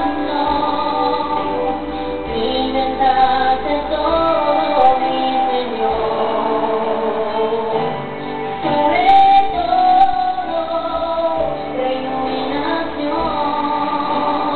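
Background music: a song with a woman singing long, gliding notes over accompaniment.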